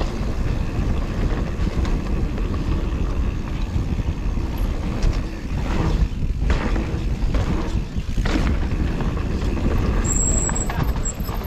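Mountain bike rolling down a rough, gravelly trail: a steady rush of wind and tyre noise with the bike rattling, and three sharper knocks around the middle from bumps.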